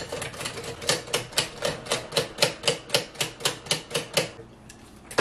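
Rotary telephone dial clicking as it is turned and spins back, a quick, even run of clicks that stops about four seconds in.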